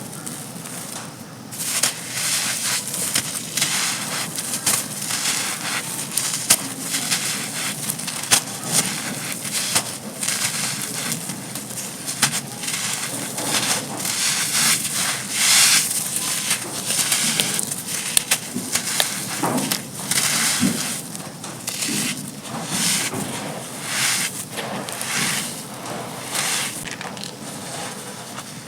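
Dry, gritty black sand-and-cement chunks crunching and crumbling, with a dense crackle of many small sharp snaps and grainy rustles that swells and eases every second or two.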